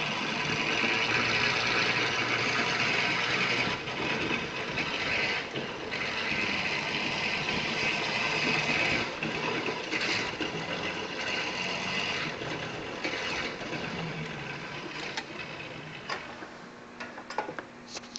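Cushman stand-up three-wheeled utility vehicle driven at full speed, a steady mechanical running noise that grows quieter over the last few seconds, with a few sharp clicks near the end.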